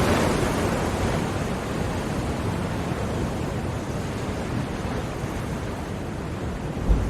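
Ocean surf: a steady rushing wash of waves that slowly eases off, then swells again near the end with a low thump as the next wave breaks.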